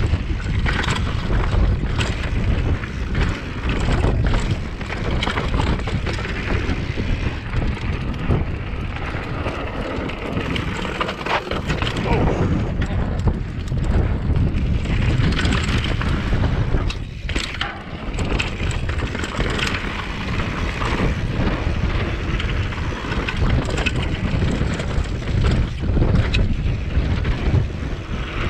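Wind buffeting the camera microphone on a mountain bike ridden fast down a dirt singletrack, with the tyres rolling over the dirt and frequent short knocks and rattles from the bike over bumps.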